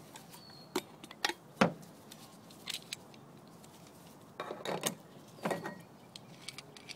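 A stuck can lid being worked at by hand: irregular clicks and knocks of metal handling, the sharpest about one and a half seconds in, with a cluster of rattling clicks around five seconds in.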